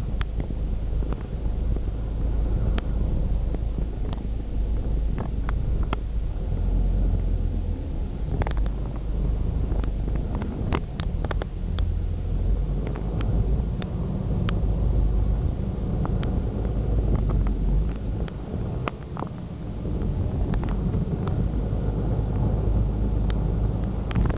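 Car driving along heard from inside the cabin: a steady low road and engine rumble with wind buffeting the microphone, and scattered short clicks and knocks throughout.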